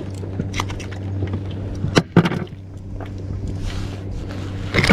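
Fishing pliers being worked in the hands, giving a few sharp clicks, the loudest about two seconds in, over a steady low hum that fades halfway through.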